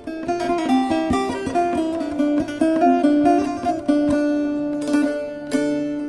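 Turkish folk tune (türkü) played on a plucked string instrument, a melody of short picked notes with no singing.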